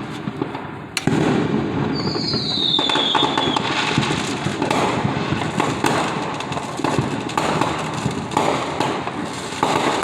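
Many fireworks going off at once: a steady rattle of bangs and crackles, with a sharp bang about a second in and a whistle falling in pitch just after it.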